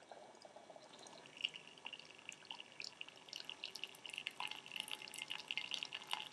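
Hot water poured from a thermos into a bowl: a thin, trickling splash that grows busier and louder after a second or so.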